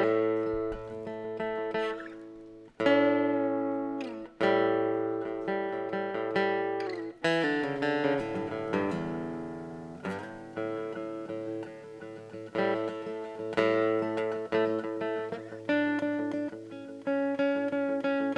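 Solo acoustic plucked string instrument opening a raga-style instrumental: single notes and chords left to ring over a low sustained drone, struck every couple of seconds at first, then busier picking from about seven seconds in.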